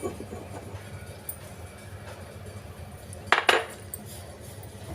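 Two sharp clinks of a kitchen utensil close together about three and a half seconds in, with a few faint taps earlier, over a low steady hum: crushing cardamom pods into powder.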